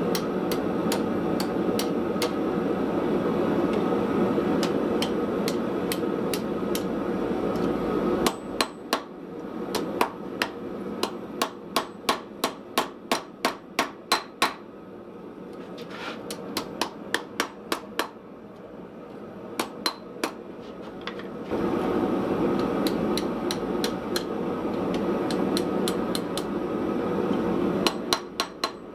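Hand hammer striking steel on a small Austrian/German pattern anvil while forging a knife blade: runs of quick blows, about two a second, each with a bright metallic ring. A steady roar sits under the blows and drops away for about thirteen seconds in the middle, when the blows are loudest.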